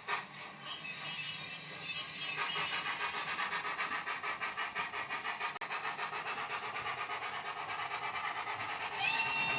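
HO-scale model train running, its sound decoder's small speaker playing a fast, even pulsing train sound of about six beats a second, with a thin high whine for the first few seconds. A held tone starts near the end.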